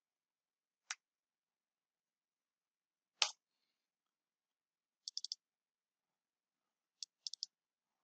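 A few sharp clicks from a computer mouse and keyboard: one about a second in, a louder one near three seconds, then two quick groups of three clicks near the end, with near silence between them.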